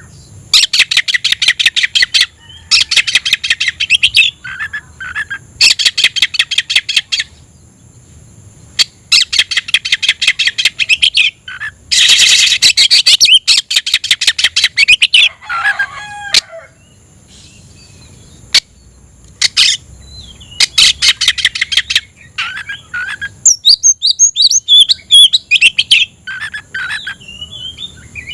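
Oriental magpie-robin (kacer) singing loudly in its challenge song to a rival: repeated phrases of rapid, stuttering sharp notes, each phrase about a second long, broken by short gaps and softer twittering.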